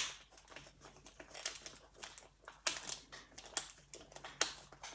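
A disc-bound planner's pen-holder pouch being snapped onto the planner's disc rings: one sharp snap at the start, then a run of softer clicks and crinkling as its edge is pressed onto the discs one by one, with a few louder clicks near the end.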